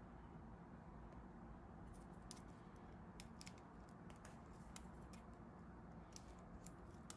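Near silence: room tone with a low steady hum, and faint scattered light clicks from about two seconds in.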